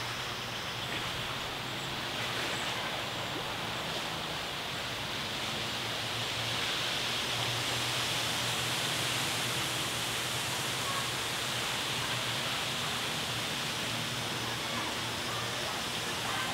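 Steady outdoor ambience: an even rushing hiss that grows a little louder about six seconds in, with a faint low hum underneath.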